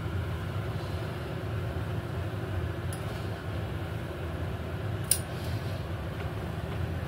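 Steady low machine hum, with two brief clicks about three and five seconds in.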